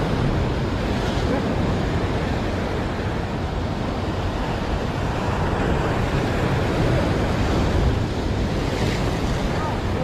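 Ocean surf breaking and washing over a rock ledge, a steady rushing wash, with wind rumbling on the microphone.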